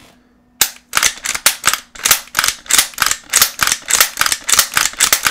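Lever action of a GForce Huckleberry LVR357 .357 Magnum rifle being worked rapidly through full strokes: a steady run of sharp metal clacks, about four a second, starting about half a second in.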